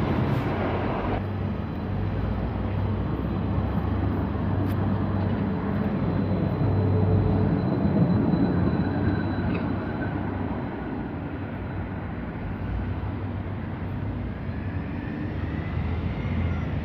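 A light-rail tram running past close by on street track: a steady rumble of wheels and motors, loudest about halfway through, with a faint high whine near the end.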